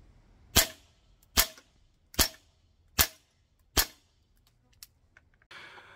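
Airsoft gas blowback rifle, a Tokyo Marui MWS-style clone, fired five single shots in semi-auto, evenly spaced a little under a second apart.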